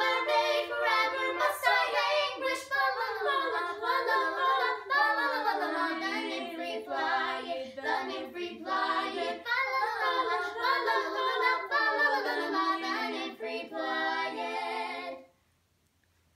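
Three girls singing a cappella in three-part harmony, with no instruments. The singing stops abruptly shortly before the end.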